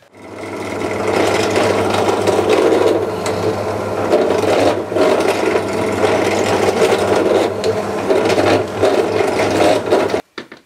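Small benchtop pillar drill running, with a steady motor hum under the grinding of the bit cutting through a leather shoe's sole. The sound cuts off suddenly near the end.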